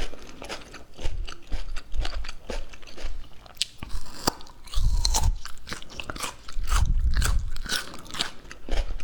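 Close-miked eating: rapid biting and chewing with many small crunchy clicks and crackles, and a few dull low thuds about halfway through and again later.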